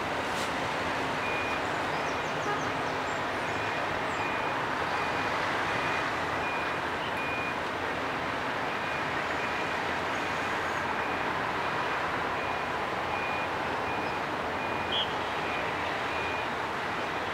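Steady din of vehicles rolling off a car ferry's stern ramp and moving about the quay, with a reversing alarm beeping high and evenly, about one and a half beeps a second, from about a second in.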